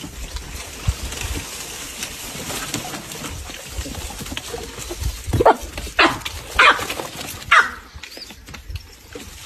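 Baboons giving four loud, sharp alarm barks in quick succession about halfway through, each rising in pitch, over a steady low background rumble and hiss.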